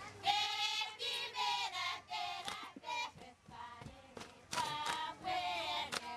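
A group of women singing a chant together in phrases as they dance, with sharp hand claps between phrases.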